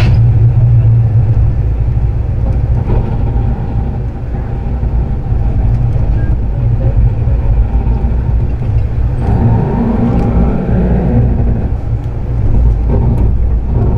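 Amtrak passenger train rolling slowly during a switching move, heard from inside the rear of the car: a steady low rumble of the running train, swelling a little about nine seconds in.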